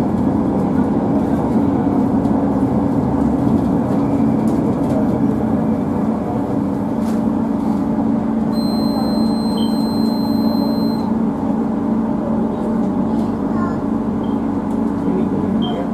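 LRT Jabodebek light-rail train running along its elevated track, heard inside the driver's cab: a steady rumble and hum. A high steady tone sounds for about two and a half seconds near the middle.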